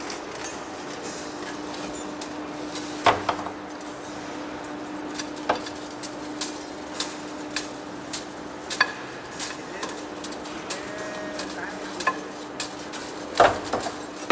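Heavy-duty lathe running with a steady hum, over irregular sharp metallic clinks and clatters, two of them louder, about three seconds in and near the end.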